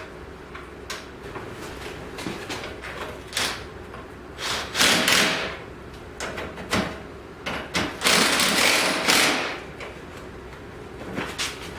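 Ratchet and socket clicking as hood-hinge bolts are run in and snugged down, in two short bursts about five and eight seconds in, with scattered light knocks of metal tools and parts in between.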